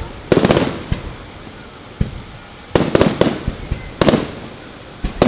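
Aerial fireworks shells bursting overhead: a string of sharp booms, two of them close together in the middle, each trailing off in an echoing rumble.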